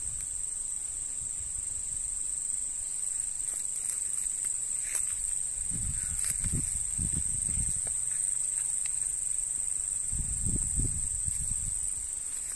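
Steady high-pitched buzz of an insect chorus. Low rumbles on the microphone come around halfway and again near the end.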